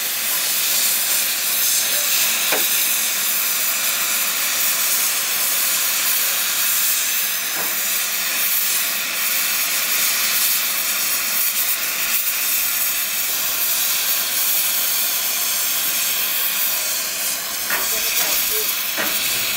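Oxy-fuel cutting torch hissing steadily as it cuts through the steel of a scrapped steam locomotive's cylinder block.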